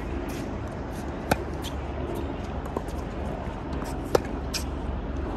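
Tennis balls struck by racquets during a rally: two sharp pops about three seconds apart, the second a forehand hit close by, with fainter ticks of ball bounces between them. A steady low rumble runs underneath.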